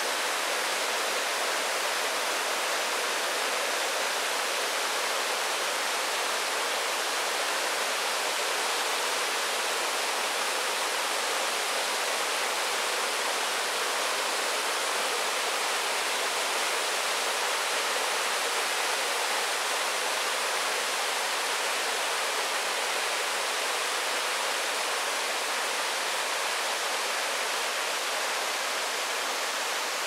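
Two-tiered waterfall pouring in a steady, even rush of water that never breaks or changes.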